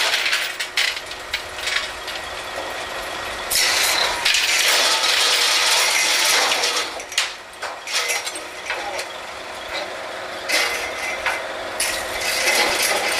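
Drilling-rig floor machinery while the next joint of drill pipe is pulled from the rat hole and made up: long bursts of hiss, the longest from about three and a half to seven seconds in, with scattered metal knocks over a steady engine hum.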